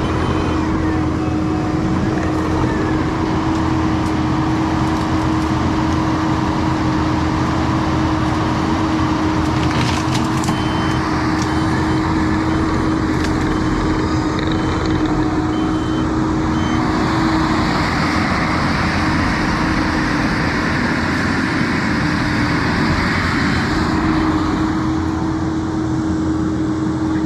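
Skid steer loader's engine running steadily at working throttle with a constant hum. Past the middle, a higher hissing whine swells for several seconds while the hum briefly sags, then settles back.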